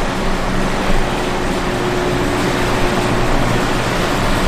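Steady mechanical hum and rushing air noise in a large warehouse, with a faint steady tone running through it.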